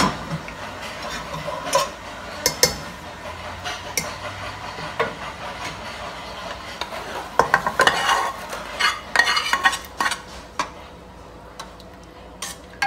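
Metal ladle stirring and scraping thick chana dal in a metal pot on a gas burner, over a steady sizzle. The clinks and scrapes come thickest and loudest a little past the middle.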